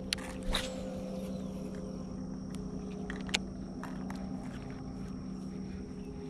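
A cast with a baitcasting reel: a sharp click, then the spool whirring and slowing in pitch as line pays out, followed by scattered light clicks of the reel during the retrieve. Under it runs a steady electric hum from the boat's trolling motor.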